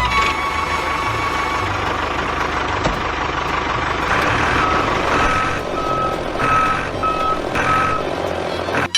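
Truck engine running steadily, with a reversing alarm beeping repeatedly at one pitch through the second half.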